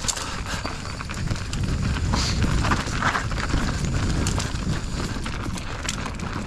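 Mountain bike riding down a rough dirt trail: a steady low rumble from the tyres and ride, with irregular clattering knocks and rattles as the bike hits roots and rocks.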